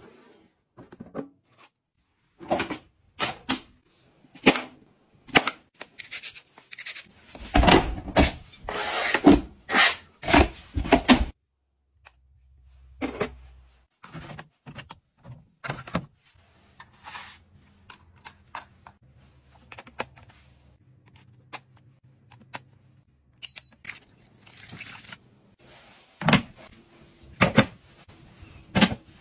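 A run of clicks, knocks and clatter as plastic kitchen appliances and containers are handled, with a low steady hum through the middle.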